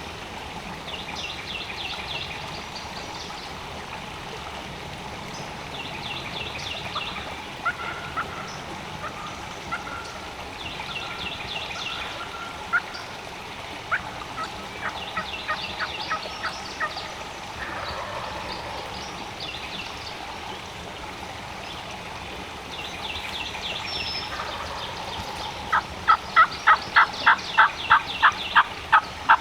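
Wild turkey gobblers gobbling in the distance, a faint rattling gobble roughly every five seconds. Near the end comes a much louder run of about a dozen sharp, evenly spaced yelps.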